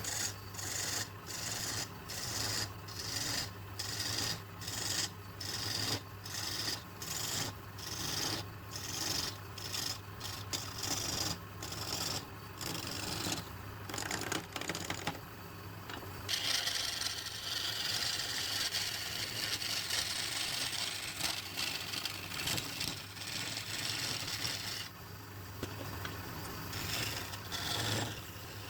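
Abrasive rubbing on wood turning on a lathe: back-and-forth strokes about two a second, which give way about halfway through to a continuous rubbing hiss. A steady motor hum runs underneath.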